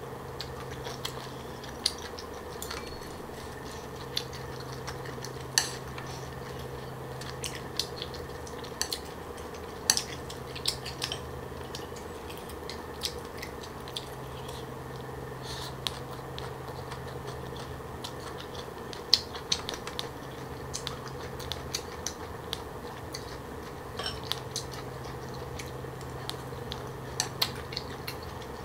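Close-miked eating sounds: chopsticks clicking against a platter of green papaya salad and chewing, heard as many irregular sharp clicks and crunches over a steady low hum.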